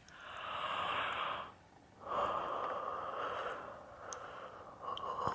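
Slow, breathy open-mouthed exhales blown close to the microphone, ASMR 'fogging' as if misting a mirror: two long breaths and a shorter one near the end, with a faint mouth click or two between them.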